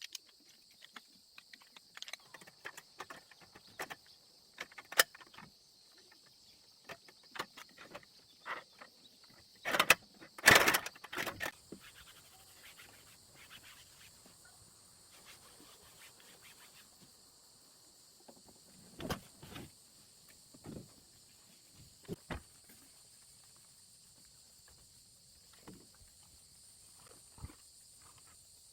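Steady high chorus of crickets, with scattered small clicks and knocks of things being handled and a louder clatter about ten seconds in.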